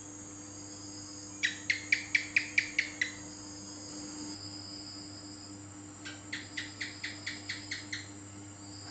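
House gecko (cicak) calling in two runs of quick, sharp chirps, about five a second: eight loud chirps about a second and a half in, then a softer run of about nine near the end.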